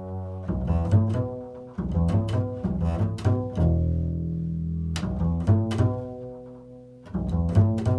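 Improvised music on a low-pitched string instrument: notes plucked in quick groups, then one long note left ringing and fading in the middle, and a fresh run of notes near the end.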